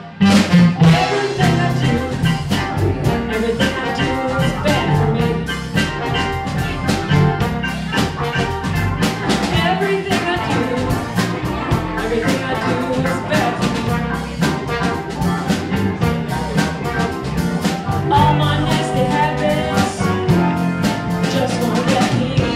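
Live band playing a bluesy jazz number: drum kit keeping a steady beat under bass, electric guitar, Hammond organ and trombone.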